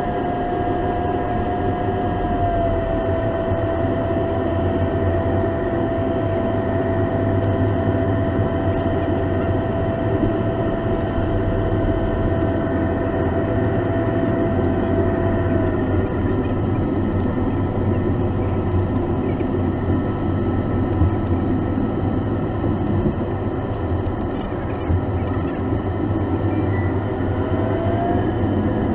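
Cabin noise of a Boeing 737-800 taxiing, its CFM56 turbofan engines near idle. There is a steady rumble and a whine that steps down slightly in pitch about two and a half seconds in, fades about halfway through, and rises again near the end.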